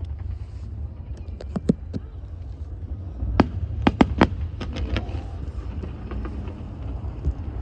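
Scattered sharp pops and crackles of fireworks bursting, irregular and clustered about one to five seconds in, over a steady low rumble.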